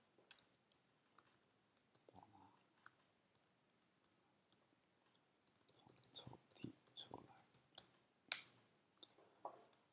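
Faint computer mouse and keyboard clicks, scattered at first and coming thicker in the second half.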